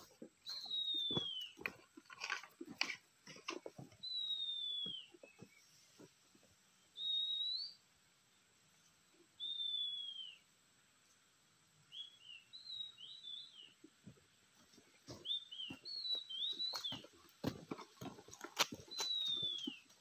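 Clear whistled calls, repeated every few seconds, most about a second long and sliding down in pitch, with some shorter rising and falling notes between them: oriental magpie-robin (kacer) whistles. Sharp crackles and knocks, like dry leaves and twigs underfoot, come in the first few seconds and again, loudest, near the end.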